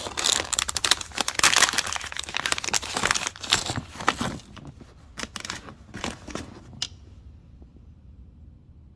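Plastic packaging crinkling and rustling as a replacement LED bulb is unwrapped, for about four seconds, followed by a few light clicks.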